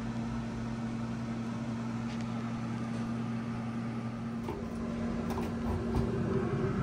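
Camp Chef XXL Pro pellet smoker running during its burn-off with a steady fan hum, the startup roar having died down and smoke now rising. A few light metal clicks come about five seconds in as the door is shut and latched.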